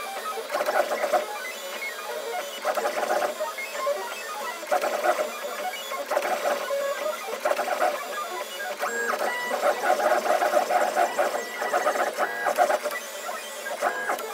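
FDM 3D printer's stepper motors whining and whirring in short runs of shifting pitch as the print head moves back and forth, laying down plastic filament.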